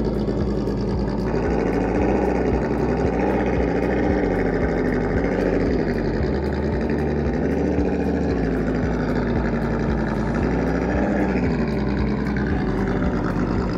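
Holmes Hobbies Trailmaster 550 brushed electric motor and drivetrain of a 1/8-scale RC crawler whining as it crawls over rocks and grass, the pitch rising and falling again and again with throttle and load.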